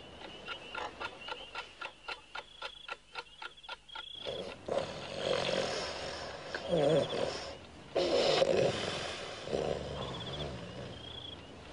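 Alarm clock ticking steadily for about four seconds, then a sleeper snoring, several long snores one after another.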